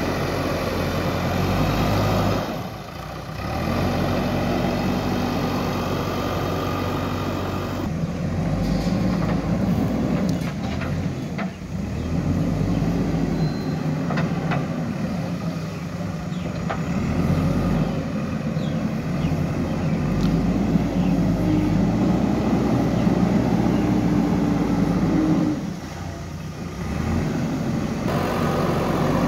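Diesel engine of a JCB 3DX Super backhoe loader running under load as the machine works and drives over loose earth, its note rising and falling. A few short knocks sound around the middle, and the engine sound dips briefly twice.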